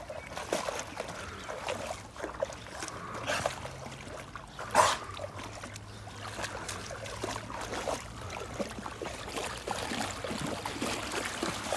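A boxer dog wading in a shallow brook and nosing under the water: irregular sloshing and small splashes, with one louder splash about five seconds in.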